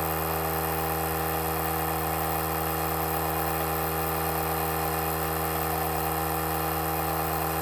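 Andeman portable battery-powered tire compressor running steadily, its small motor and piston pump humming with a constant pitch as it inflates an ATV tire toward a set pressure of about 26 psi.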